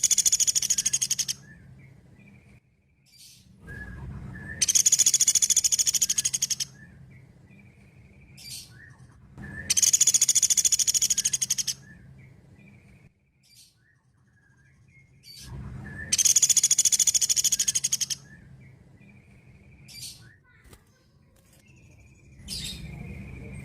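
Pelatuk beras woodpecker calling in rapid, high-pitched rattling trills, each about two seconds long, four times over, with fainter short calls in the pauses between them.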